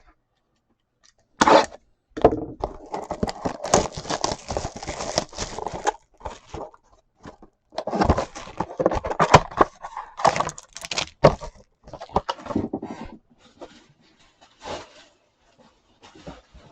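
A trading card box and its pack being opened by hand: a sharp knock about a second and a half in, then stretches of tearing and crinkling of wrapping and cardboard, thinning to scattered handling noises near the end.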